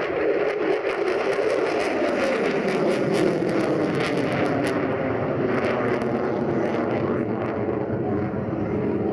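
Lockheed Martin F-22 Raptor's twin Pratt & Whitney F119 turbofans at high power as the jet pulls up and climbs away: a loud, steady jet rumble with rapid crackling running through it.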